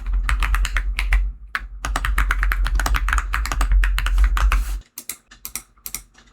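Computer keyboard typing: rapid, dense keystrokes that thin out to scattered key presses near the end, over a low hum that cuts off about three-quarters of the way through.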